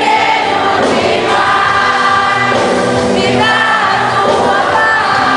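Choir singing a hymn, several voices holding long notes together.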